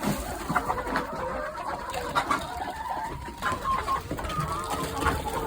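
Farmyard birds calling in short, repeated notes.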